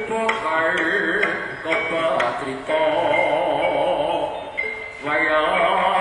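Live Javanese jaranan gamelan accompaniment: struck percussion under a wavering, voice-like melodic line that carries most strongly through the middle.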